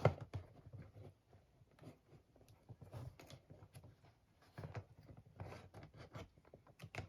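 The back of a knife blade prying and scraping at the tucked lip of a small cardboard CPU box: scattered light clicks, scratches and rustles of card being worked open, with a sharper click right at the start.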